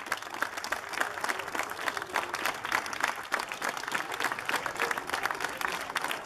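A large crowd clapping steadily, many hands at once, with voices chattering faintly underneath.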